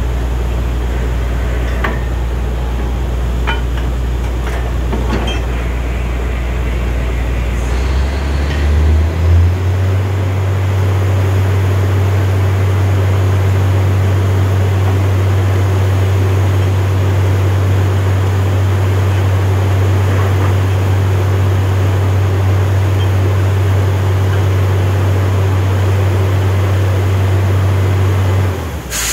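Borewell drilling rig's engine running steadily, speeding up about eight seconds in and holding the higher speed.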